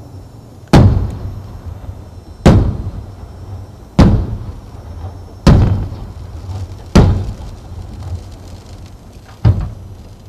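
Six loud booms from aerial firework shells, about one and a half seconds apart, each followed by a rolling echo. The last boom is a little weaker and comes after a longer gap.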